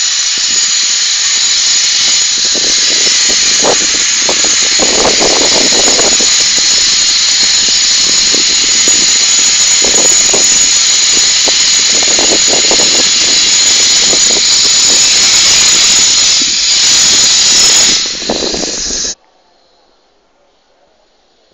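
Loud, steady high-pitched machine whine and hiss with fainter uneven lower sounds under it, cutting off abruptly about 19 seconds in.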